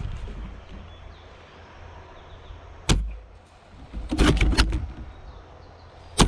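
SSG10-A2 airsoft bolt-action sniper rifle firing. A sharp crack comes about three seconds in, a quick run of clicks follows a second later as the bolt is cycled, and a second sharp crack comes near the end.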